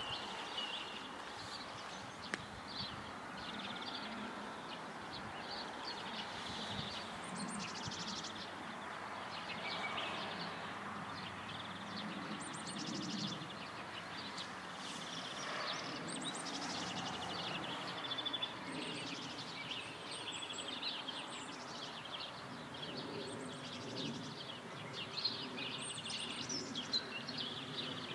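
Songbirds chirping and trilling, many short high calls coming and going over a faint steady outdoor background.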